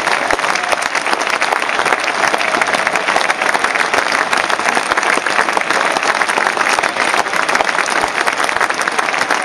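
Stadium cricket crowd applauding steadily: dense, sustained clapping marking a batsman's century.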